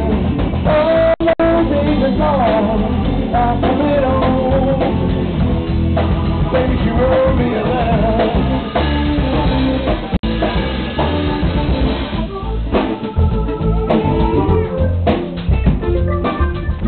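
Live blues band playing: electric guitar, drum kit and a man singing, with held organ chords coming to the front in the last few seconds. The recording drops out briefly twice.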